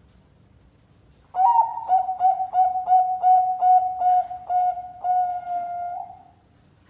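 Perkutut Bangkok zebra dove cooing: about a second and a half in, a quick run of short, clear coos, about three a second, ending in a longer held note.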